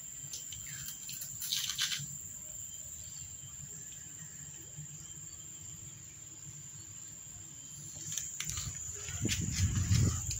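Steady high-pitched insect chirring in the background, with a short rustle about two seconds in and a louder low rumble with clicks near the end.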